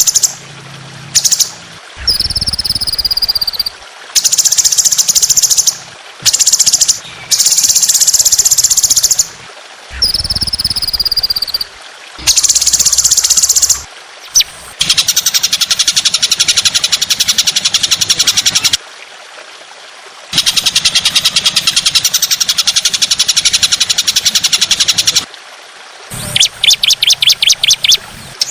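Recorded songbird song for training caged birds: loud, high, rapid chattering bursts a second or two long with short gaps between them, then longer unbroken buzzing runs, and a quick series of sharp repeated notes near the end.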